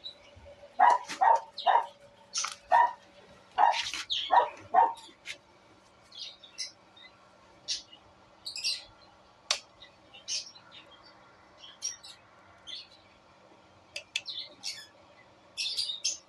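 A dog barking in a quick run of short barks during the first five seconds, then birds chirping in short scattered calls.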